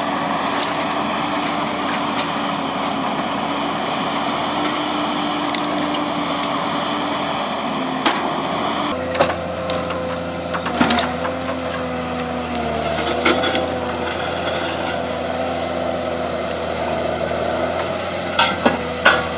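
Valmet forestry harvester's diesel engine and hydraulics running steadily, with the pitch shifting about nine seconds in. Occasional sharp knocks and clatter come from the rake-fitted harvester head working brush on the ground, several of them near the end.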